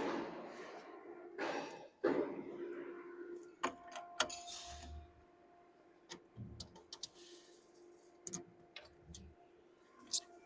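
A series of metallic knocks and clicks. The first two, at the start and about two seconds in, are the loudest and leave a ringing tone that lingers. Lighter clicks and a few dull thumps follow.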